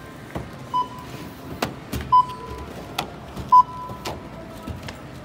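Short electronic beeps, three of them about a second and a half apart, among scattered clicks and knocks.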